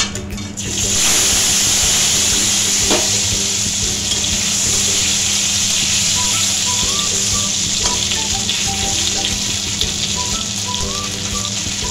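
Crab roe sizzling in hot oil in a wok: the sizzle starts suddenly about a second in as the roe goes into the oil, then fries steadily while a spatula stirs it.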